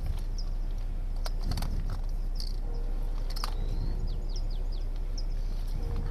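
Small birds chirping outdoors: short, high chirps every second or so over a steady low rumble, with a few sharp clicks.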